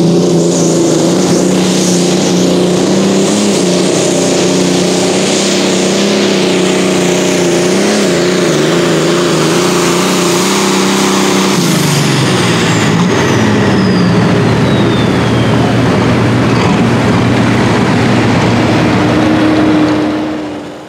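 John Deere pulling tractor engine at full power dragging a weight-transfer sled, its note wavering under load. About two-thirds through the pitch drops as the pull ends and the tractor slows, and a high whistle falls away.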